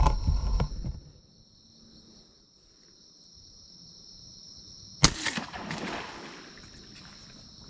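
A Ballista Bat pistol crossbow firing a bowfishing arrow about five seconds in: one sharp, loud snap, followed by about a second of fainter noise. A steady high insect drone sounds throughout, with rustling from movement in the first second.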